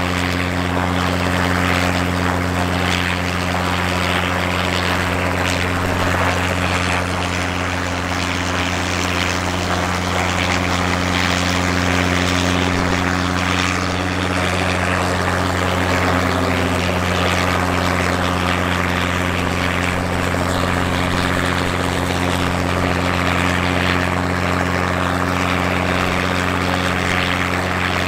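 A light piston-engined helicopter running steadily at hover power: a constant engine drone with the whirr of the rotor, holding one pitch throughout.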